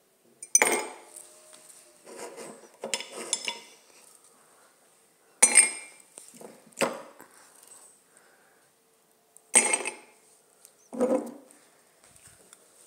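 Ice being bitten and crunched close to the microphone: about seven sharp crunches at irregular intervals, a second or two apart.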